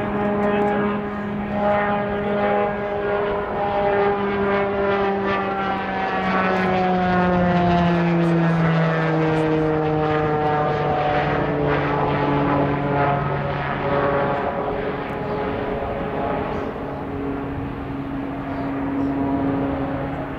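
Piaggio P.180 Avanti's twin pusher turboprops droning as it climbs out overhead. The propeller tone falls in pitch as it passes, about halfway through, then holds steady as the aircraft moves away.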